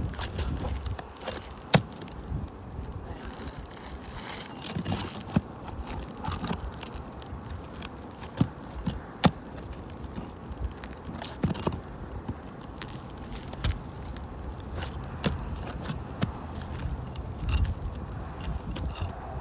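Asphalt roof shingles being worked loose and lifted: irregular scraping and crackling with scattered sharp clicks, over a low rumble.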